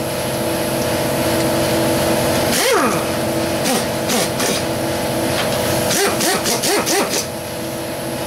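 Pneumatic air ratchet spinning 13 mm nuts off a VW engine case in bursts, its pitch sliding up and down with each trigger pull. There is one longer burst about a third of the way in and a quick string of short bursts near the end, over a steady machine hum.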